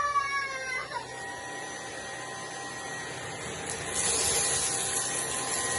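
Bork V800 cordless stick vacuum running, a steady motor whine over a hiss of airflow. A higher pitched sound glides down and fades in the first second, and about four seconds in the hiss grows louder and brighter.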